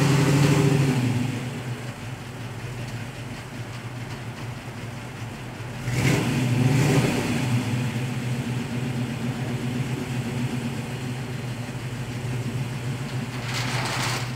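Vehicle engine running steadily, swelling louder for a moment at the start and again about six seconds in.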